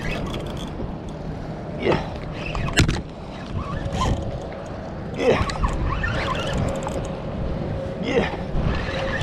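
Wind rumbling on the microphone, with a sharp click a little under three seconds in and a faint steady hum through the second half.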